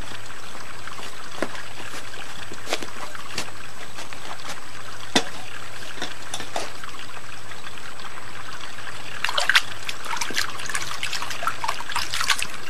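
Water trickling steadily, with scattered light clicks; from about nine seconds in, a busier run of small splashes and clicks.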